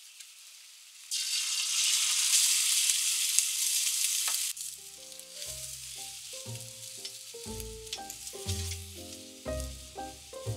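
Egg for a rolled omelette sizzling in a hot square copper tamagoyaki pan: a loud sizzle starts about a second in and stops abruptly about four and a half seconds in, leaving fainter frying. Background music with short melodic notes comes in about halfway.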